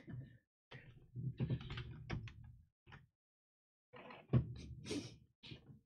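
Clicks and light knocks from hands handling a Sony VAIO laptop, in two short clusters about a second apart.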